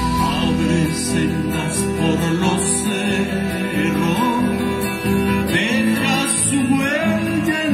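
Music with acoustic guitars and other plucked strings, steady throughout.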